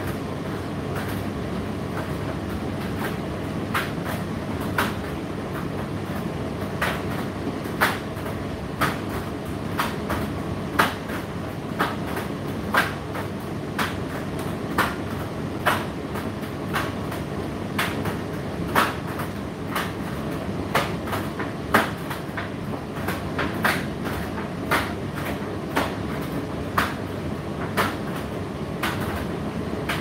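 Indesit IDC8T3 condenser tumble dryer running, with a steady rumble and hum and sharp clicks about once a second.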